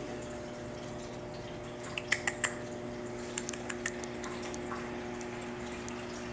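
Steady hum of room tone, with a quick cluster of light clicks and ticks about two seconds in and a few fainter ticks a second or so later.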